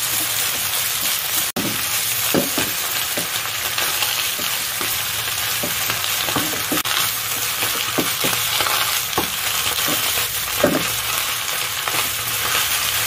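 Napa cabbage and pork belly sizzling in hot oil in a wok over high heat, stir-fried with a wooden spatula that knocks and scrapes against the pan now and then.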